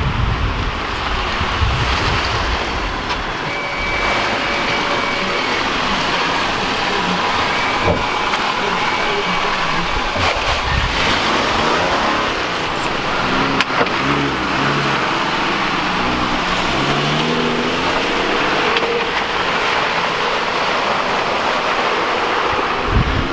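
Jeep SUVs driving off-road through mud: the engine runs over a steady wash of tyre and mud noise. About halfway through, the engine's pitch rises and falls a few times as the revs change.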